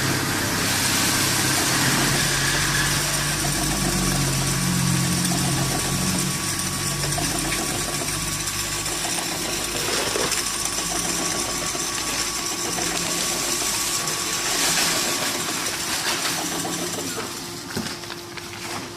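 Powder-handling machinery (auger filler and auger conveyor) running through a bag-filling cycle: a steady electric motor hum over a constant hiss. The low hum drops away about halfway through as one drive stops.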